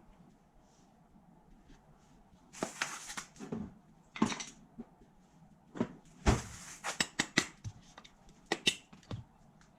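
Metal parts of a Honda NSR50 engine being handled during bottom-end teardown: a few short scrapes followed by irregular clinks and knocks, busiest in a cluster of sharp clicks around two-thirds of the way through.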